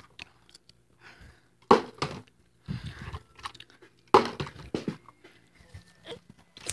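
A partly filled plastic water bottle flipped and landing, with a few sharp knocks and the crinkle of the plastic bottle being handled.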